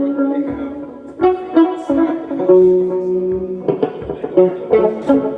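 Guitar music: plucked guitar notes and chords ringing out, fading about a second in before a fresh run of notes starts.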